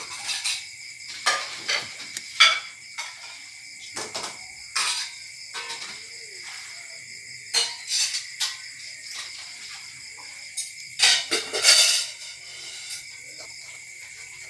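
Metal ladle stirring chicken soup in a large aluminium pot, knocking and scraping against the pot in irregular clinks, busiest about eleven to twelve seconds in. A steady insect trill runs behind.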